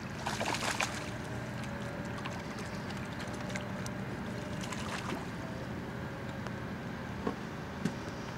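Hooked skipjack herring splashing at the water's surface as it is reeled to the boat, in a strong burst about a second in and a weaker one around five seconds, over a steady low background. Two sharp knocks come near the end.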